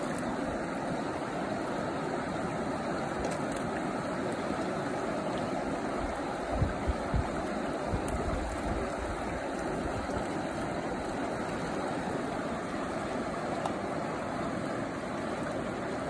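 Fast-flowing river rushing over rocks, a steady even rush, with a few short low thumps of wind on the microphone about seven seconds in.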